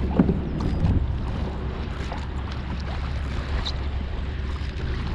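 Wind rumbling on the microphone, with water moving against a kayak's hull as it drifts on a strong tide.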